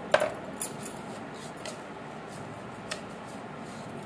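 A few short, sharp clicks and taps over a steady hiss as cumin seeds are handled and sprinkled by hand into a stainless steel bowl.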